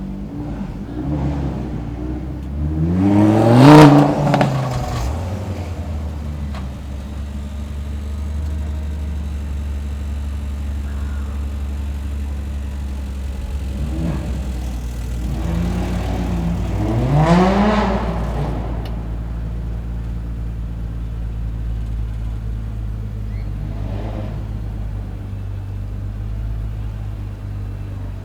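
Nissan GT-R cars idling with a steady low rumble, while engines rev up sharply as cars pull away: the loudest rev is about four seconds in, and another rises and falls about seventeen seconds in.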